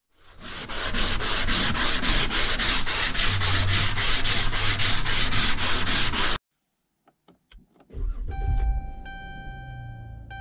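Hand sanding of a car's primed body panel with a sanding pad, in even back-and-forth strokes about four a second, stopping abruptly. After a short silence come a few clicks, a brief low rumble and a steady electronic chime tone.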